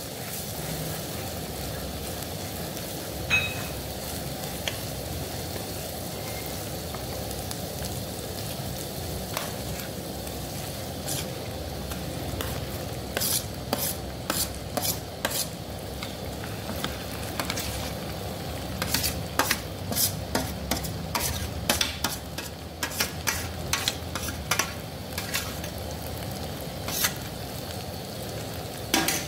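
Ground green-pea paste with sesame seeds sizzling steadily in hot oil in a pan while a spatula stirs it. Irregular sharp clicks and scrapes of the spatula against the pan start about ten seconds in and come thick and fast in the second half.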